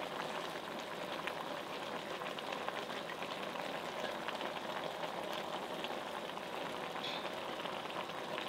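Vegetables and shrimp cooking in a glass pot on a portable stove, with a steady low bubbling and sizzling crackle.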